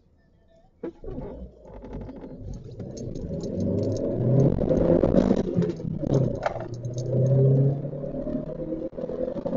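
Chevrolet Sonic's 1.8-litre Ecotec four-cylinder engine under hard acceleration from a standstill, revs climbing in first gear. A brief dip about six seconds in is the shift into second, after which the engine pulls and climbs again.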